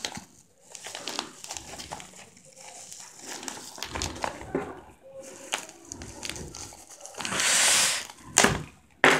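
Plastic bubble wrap crinkling and crackling as it is handled and pulled open, with a louder tearing of the wrap about seven seconds in and a couple of sharp clicks near the end.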